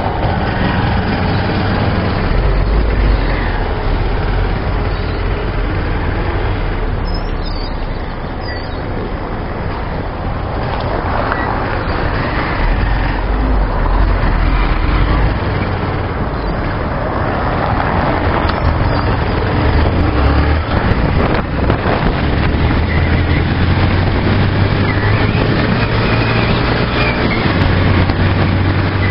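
Honda CG 125 Fan motorcycle's single-cylinder engine running as the bike rides along a paving-stone street, with steady road noise.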